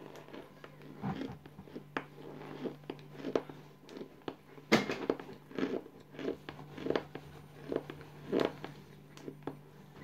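Crunchy cooled cornstarch chunks being chewed close to the microphone: irregular crisp crunches, about one or two a second, the loudest about five seconds in.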